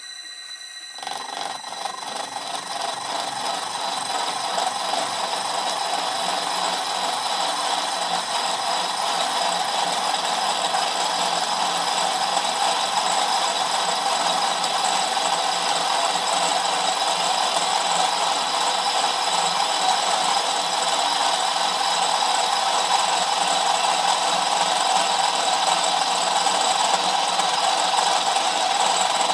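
A 25 mm 60-degree angular cutter in a drill chuck milling the end face of SS400 mild steel. The machine runs with a steady whine. About a second in, the cutter bites into the steel, and a continuous metal-cutting grind starts and slowly grows louder.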